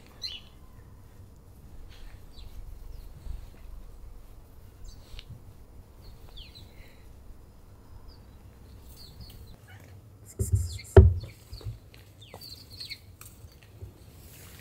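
Stray tabby cat purring with a steady low rumble while being stroked. A couple of loud knocks come about ten seconds in, and faint bird chirps sound in the background.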